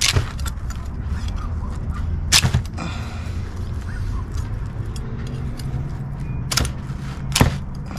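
A knife cutting and scraping through a fish carcass on a plastic folding table. There are a few sharp knocks as the blade strikes the tabletop: once at the start, about two and a half seconds in, and twice near the end. A steady low hum sits underneath.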